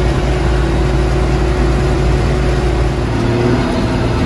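Cab noise of a 1966 M35A2 deuce-and-a-half military truck cruising at its top speed: the LDT-465 multifuel engine and drivetrain running as a loud, steady low drone with a steady hum.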